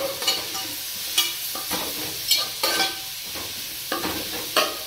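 A spatula stirring chopped bitter gourd frying in oil in a metal pot: repeated scrapes and clinks against the pot over a steady sizzle.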